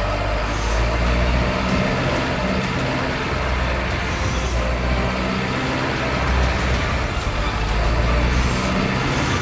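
A heavy vehicle engine running steadily without a break.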